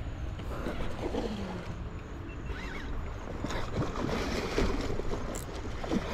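Water washing and rushing steadily, with wind buffeting the microphone.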